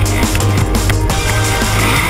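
Drum and bass music track with a fast beat and heavy bass.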